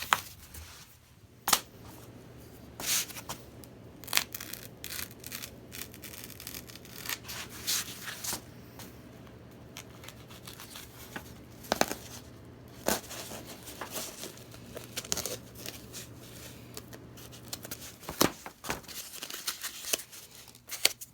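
Packing foam being cut into a circle: irregular scratchy, tearing strokes of the cut, with sharp clicks and knocks scattered through, over a faint low steady hum.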